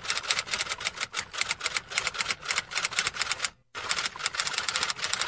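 Computer keyboard being hammered with fast, frantic key presses: a dense, steady run of clicks, many a second, broken once by a brief silence about three and a half seconds in.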